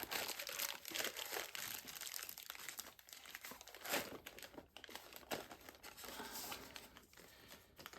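Packaging crinkling and rustling in irregular bursts, with a few sharper crackles, as a boxed model locomotive is worked loose from its inserts.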